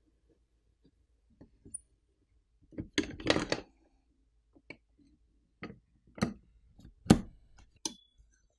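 Handling clicks and knocks of a metal Refox RS50 phone-opening clamp fixture being set up: a few faint clicks, then a quick cluster of clicks and rattles about three seconds in, followed by single sharp clicks every half second to a second, the loudest about seven seconds in.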